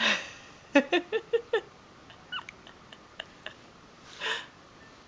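Six-month-old baby fussing while being spoon-fed banana puree: a breathy outburst, then a run of five quick short whimpering cries, followed by a few faint mouth clicks and a breath. She dislikes the puree.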